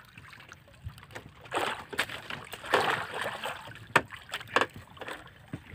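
Water lapping and sloshing against the hull of a wooden outrigger boat drifting with its engine off, with a few sharp knocks in the second half.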